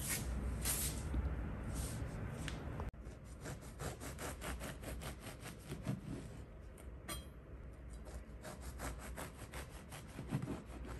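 Bread knife sawing through a crusty whole-grain loaf on a plastic cutting board: a long run of quick rasping strokes, several a second. Before the cutting starts there are about three seconds of louder rustling and handling.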